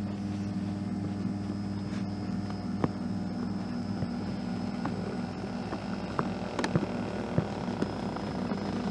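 Inada Robostic HCP-D6D massage chair's electric motors running with a steady low hum, with scattered small clicks and creaks that come more often in the second half.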